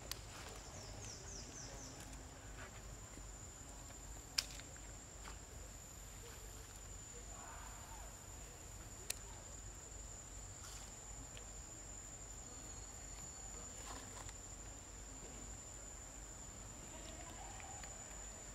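Faint outdoor ambience under a steady, high insect drone, with a few sharp clicks, the loudest about four seconds in.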